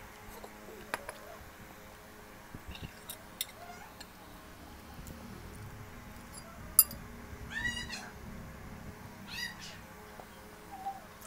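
Two short high calls that rise and fall in pitch, cat-like meows, about a second and a half apart. Scattered soft clicks of eating run through, with one sharp click just before the first call.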